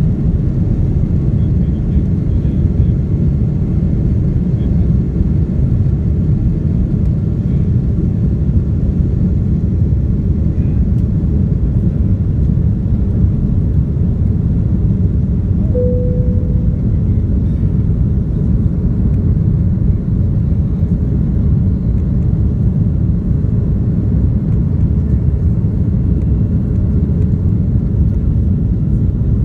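Airbus A330-200 cabin noise at takeoff power: the jet engines and rushing air make a loud, steady, deep rumble through the takeoff and initial climb. A brief single tone sounds about halfway through.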